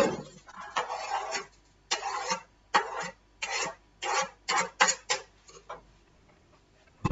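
Kitchen cookware handled at an open oven: a clank, then a run of about ten short scraping strokes, like a spoon working through food in a metal bowl, followed by a sharp knock near the end.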